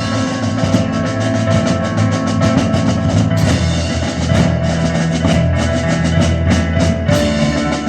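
Rock music with a steady drum-kit beat and bass drum.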